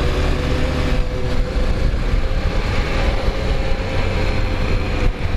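Honda XRE 300 single-cylinder motorcycle engine running steadily at cruising speed, mixed with wind and road noise at the rider's helmet.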